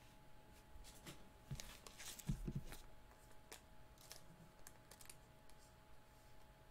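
Faint clicks and taps of baseball trading cards being handled, with a louder cluster of clicks and a soft thump a little over two seconds in as a card is laid down on the table.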